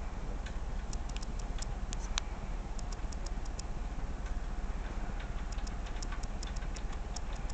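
Small irregular clicks and taps, some in quick runs, over a steady low hum: fingers handling a camcorder and fumbling at its buttons.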